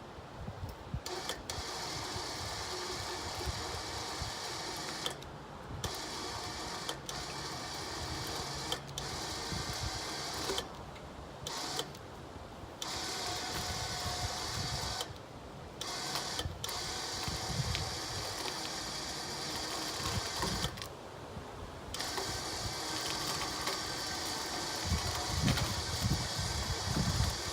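Electric log winch motor whirring as it runs, stopping abruptly and starting again several times.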